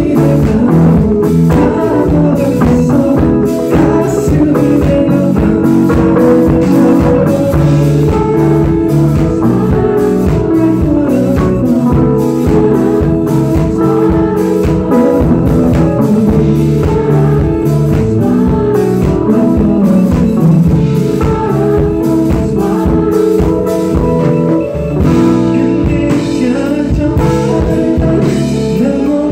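Live band music with a singer, electric guitar and drum kit keeping a steady beat, as heard from the audience at a concert.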